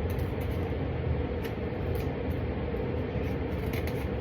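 Steady low rumbling background noise with a few faint, light clicks.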